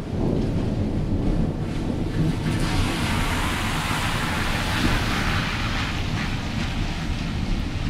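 A car passes on a wet road, its tyre hiss swelling through the middle and fading away, over a steady low rumble of wind on the microphone.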